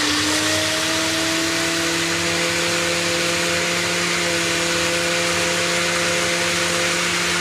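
Ninja personal blender's motor running steadily, blending broccoli and water in its push-down cup.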